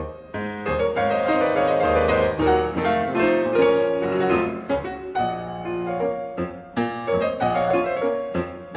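Background piano music: notes struck and left to ring, a melody over chords.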